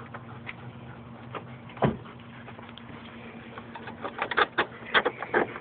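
Scattered clicks and rattles of hands handling headlight wiring and plastic connectors behind a car's front bumper, coming quicker near the end, over a faint steady hum.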